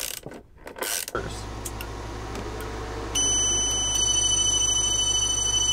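A wrench clicks and knocks on a battery terminal. About a second in, a steady low hum starts as the Growatt 48 V inverters power up. About three seconds in, an inverter's buzzer sounds a steady high-pitched beep that carries on.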